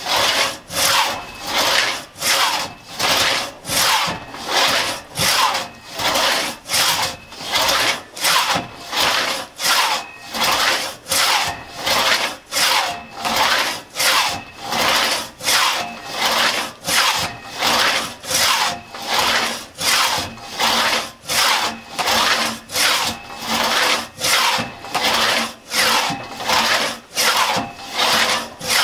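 A 4.5-foot Tuttle-tooth one-man crosscut saw cutting through a log by hand. Each stroke is a rasp of the teeth through the wood, in a steady rhythm of about three strokes every two seconds.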